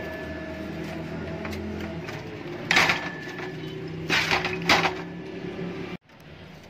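Metal parts of an opened refrigerator compressor, its motor and pump assembly, knocking and clunking against each other and the workbench as they are handled, in a few separate bursts over a steady low hum. The hum drops off suddenly near the end.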